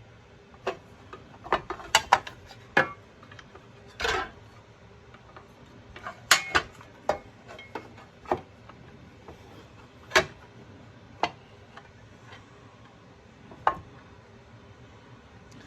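Irregular clicks and knocks of small plastic and metal parts being handled and fitted together, with a short scrape about four seconds in.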